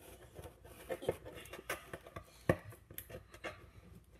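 Irregular scraping, rustling and tapping as someone works at a taped cardboard package to get it open, with a sharp knock about halfway through.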